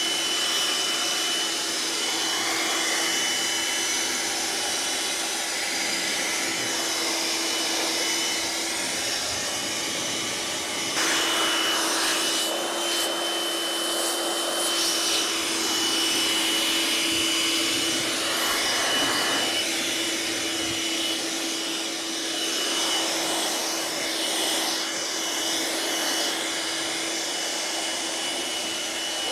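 Handheld blower running steadily, a motor whine over a rush of air, blowing sawdust out of a sliding table saw. The air noise gets louder and fuller about a third of the way in as the blast is aimed into the machine.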